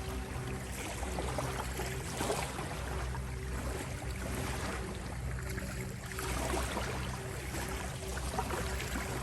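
Ocean waves washing in, the surf noise swelling and easing every second or two, over a steady low drone of held tones.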